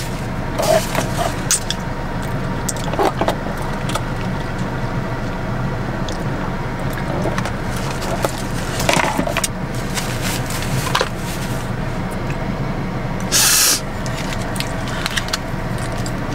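Steady low hum of a parked car running at idle, heard from inside the cabin, with scattered small eating sounds, a sip through a drinking straw, and a short loud hiss about thirteen seconds in.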